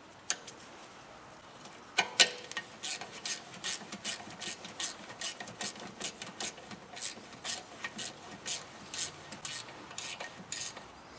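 Hand ratchet wrench clicking in short, even strokes, about three to four clicks a second, as a brake caliper bolt is tightened. A couple of sharper knocks come just before the clicking starts, about two seconds in.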